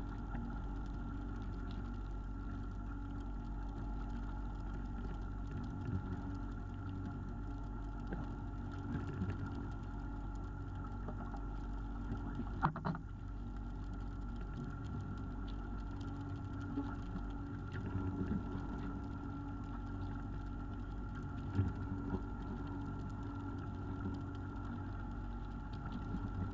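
Fishing boat's engine running steadily, with scattered short knocks, one sharper knock about halfway through.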